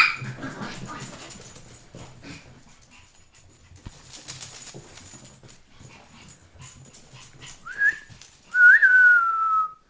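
A dog whining at a bird flying loose in the house. Near the end it gives a short whine, then a longer one that slides slowly down in pitch. A single loud sharp sound comes right at the start.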